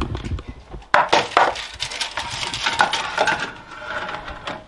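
Metal baking sheet clinking and scraping as it is slid over a wire rack into a masonry bake oven, with a few sharp knocks about a second in.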